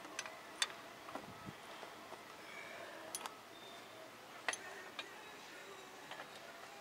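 Scattered light clicks and clinks of hand tools and parts being handled during motorcycle brake work, about eight at irregular intervals, the sharpest about half a second in and about four and a half seconds in.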